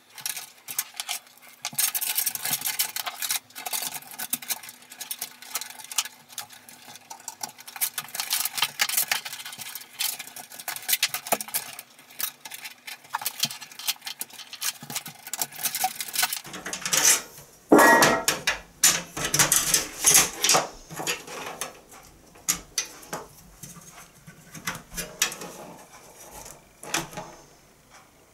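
Metal hard-drive cage and drive trays in a PC case being handled and fitted, giving an irregular run of clicks and clinks, with a louder clatter about two-thirds of the way through.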